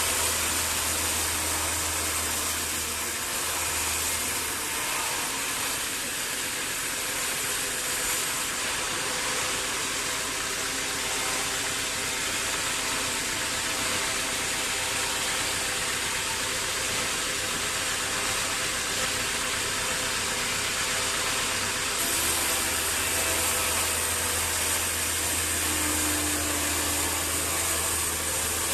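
Sawmill machinery running steadily: an even rushing noise over a low motor hum. The hum drops away a few seconds in and comes back about two-thirds of the way through.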